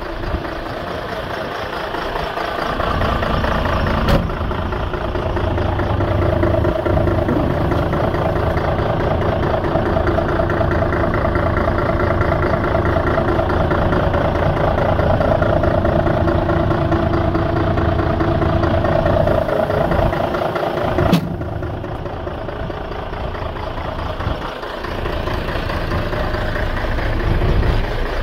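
Mercedes-Benz SK 3234's V6 diesel engine idling steadily. Two sharp knocks cut across it, one about four seconds in and one about three-quarters of the way through.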